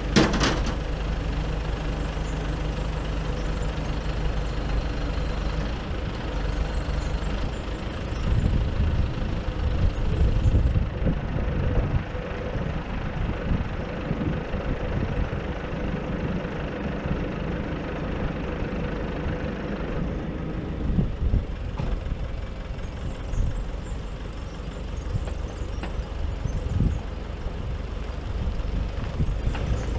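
Nissan Cabstar truck's diesel engine idling steadily, with a sharp click right at the start.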